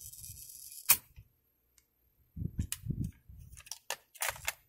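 Sharp plastic clicks and light knocks as a cassette is taken out of an open cassette-deck mechanism, turned over and pushed back in. There is a single click about a second in, then a cluster of clicks and soft handling knocks in the second half.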